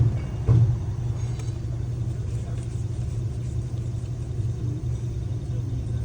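Car running with a steady low rumble, and two short thumps within the first second.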